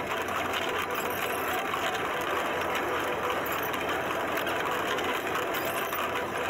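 Carnival horse-racing arcade game running, a steady mechanical whir as its toy racehorses advance along the track.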